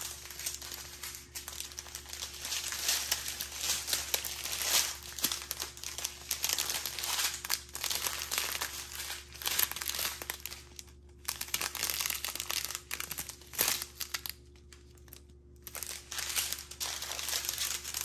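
Small plastic zip bags of diamond painting drills crinkling and rustling as they are handled and laid out in rows, with brief pauses about eleven and fifteen seconds in.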